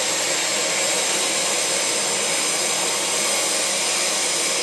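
Oxy-acetylene cutting torch running with the cutting-oxygen jet on, a steady hiss as it washes a weld off a steel plate.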